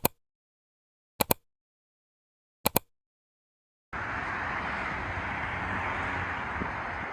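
Three short, sharp sounds about a second and a half apart in dead silence, then a steady hiss of outdoor ambient noise that starts about four seconds in.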